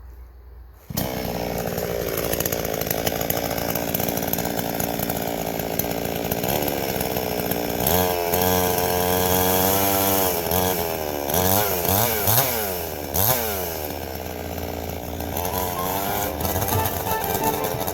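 Chainsaw running and cutting into a log, milling knots and bumps off the surface. It starts suddenly about a second in, and the engine pitch rises and falls repeatedly as the saw works the wood.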